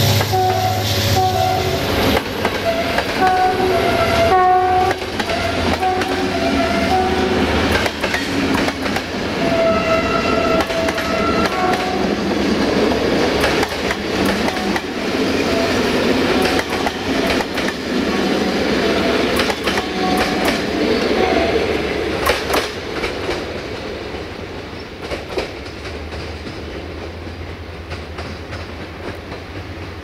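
Passenger coaches rolling past with the clickety-clack of wheels over rail joints, while the GM locomotive 64-1000-0 at the head sounds its multi-note horn: a run of short rhythmic toots at the start, a longer blast about ten seconds in, and more short toots around twenty seconds. The rolling sound fades near the end as the train pulls away.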